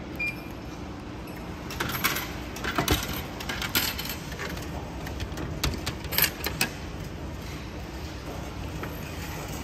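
A short beep as the selection button on a momiji manju vending machine is pressed. Then, from about two to seven seconds in, a run of mechanical clicks and clatters as the machine vends a boxed item into its delivery tray.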